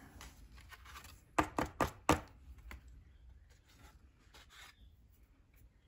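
Paper card being handled on a tabletop: four quick, sharp light knocks in a row about a second and a half in, then a few faint ticks of handling.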